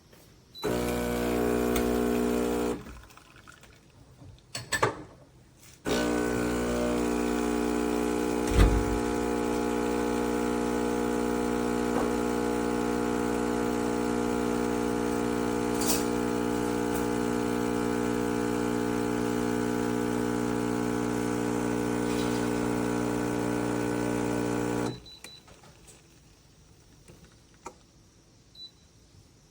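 Chefman espresso machine's 15-bar pump buzzing steadily: a short run of about two seconds, then, after a pause, a long run of nearly twenty seconds with a single low knock a few seconds into it.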